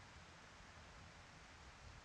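Near silence: a faint, even hiss with no distinct sounds.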